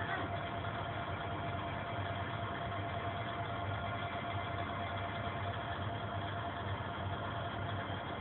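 Kominato Railway diesel railcar's engine idling steadily, with a thin steady high tone held over the engine noise.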